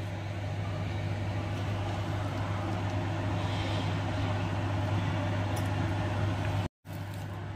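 Dried fish (tuyo, which the cook calls baby mackerel) frying in a pan of oil: a steady sizzle over a low hum, breaking off for a moment near the end.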